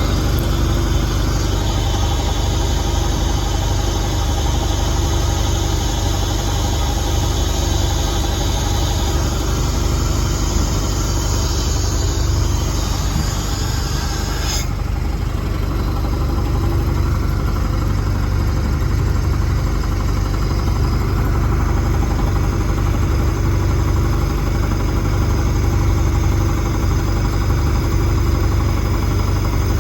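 An engine running steadily at a constant speed. A high hiss cuts off suddenly about halfway through.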